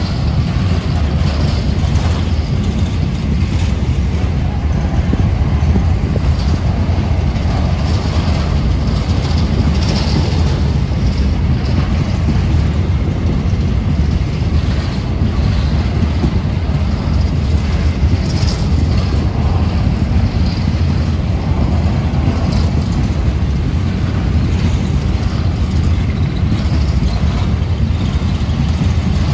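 Freight train wagons rolling past on the rails, a steady, loud running noise of steel wheels on track.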